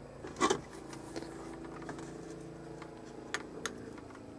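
Handling noises at a workbench: a short knock about half a second in, then two sharp clicks close together near the end, over a faint steady hum.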